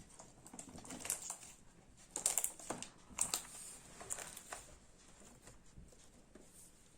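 Homemade shaving-foam slime being squeezed and pressed by hand, giving irregular sticky clicks and small pops in clusters, louder in the first half and fainter near the end.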